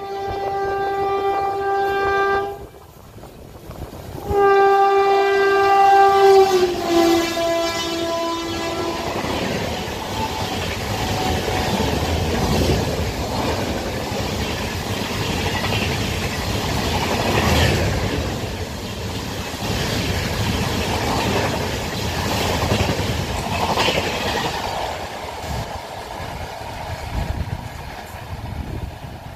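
Indian Railways electric locomotive's horn sounding twice as it approaches, the second blast longer and dropping in pitch as the engine passes. Then the Rajdhani Express coaches rush by at about 130 km/h with a steady roar and repeated wheel clatter over the rail joints, fading near the end.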